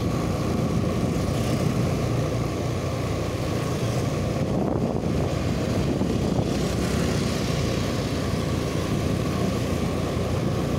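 Motorcycle running at a steady cruising pace while being ridden, a constant engine drone mixed with the rush of travel.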